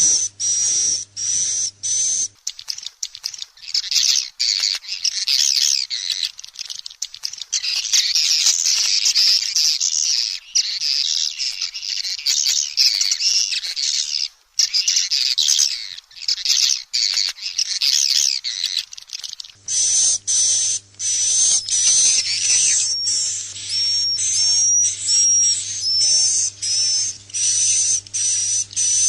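Swiftlets twittering: a dense, continuous stream of high chirps and clicks. A low steady hum drops out about two seconds in and returns about twenty seconds in.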